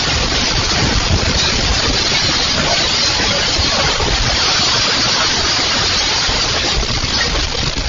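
Loud, steady rush of tornado-strength wind, with irregular low rumbling buffets on the microphone.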